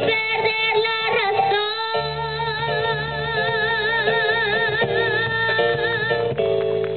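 A girl singing live into a microphone with band accompaniment: after a few short notes she holds one long note with vibrato for about four seconds, over keyboard and plucked-string backing.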